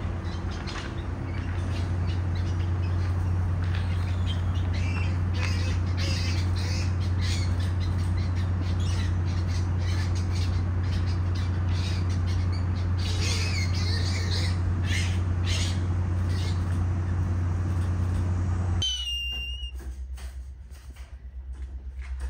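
Young cattle egrets squawking, many short harsh calls overlapping over a steady low hum. Near the end the hum cuts off and a single high, falling whistled call is heard.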